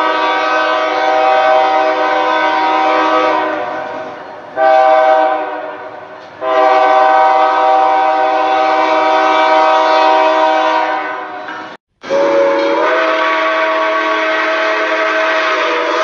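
Train horn sounding a chord of several tones in long blasts: a held blast that fades, a short one, a longer one lasting about five seconds, then after a brief break a different horn whose chord steps up in pitch shortly after it starts.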